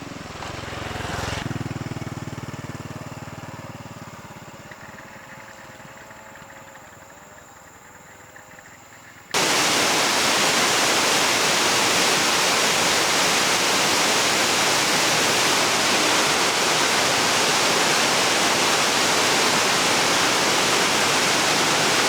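A vehicle engine passes and fades away. About nine seconds in, a loud steady rushing hiss starts abruptly and runs on at an even level, cutting off suddenly at the end.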